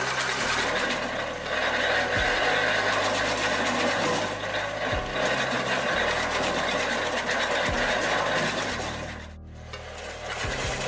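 Tractor-driven R-120 firewood cutter running, its cutter chopping fed branches into short firewood pieces over the tractor's engine. The sound is a steady, busy mechanical clatter that drops away briefly about nine seconds in.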